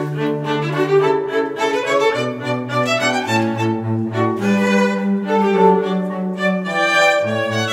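Background music played on bowed strings, violins over a cello bass line, in held notes, with the bass moving to a new note about every second.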